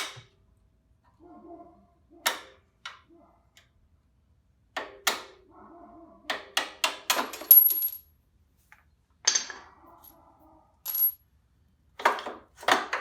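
Metal clanks and clinks as the old, blown rear shock of a Yamaha Raptor 700 ATV is worked loose and pulled out of the frame: scattered sharp knocks, a quick run of clinks around the middle, and brief high metallic rings.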